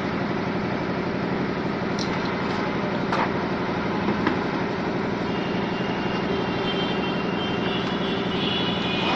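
Steady mechanical running noise, with a few light clicks about two, three and four seconds in.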